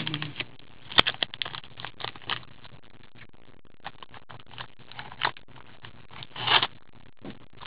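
Gloved hands handling and cutting open the plastic wrapper of a trading card pack: scattered crinkles, clicks and scrapes, busiest in the first couple of seconds, with a longer rustle near the end.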